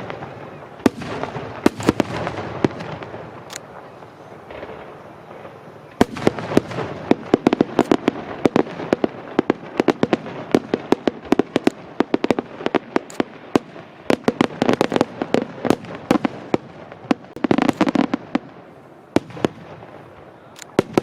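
Aerial fireworks shells bursting in rapid volleys of sharp bangs over a constant crackle. It thins out for a couple of seconds a few seconds in, then comes back dense, with a heavier, deeper burst near the end.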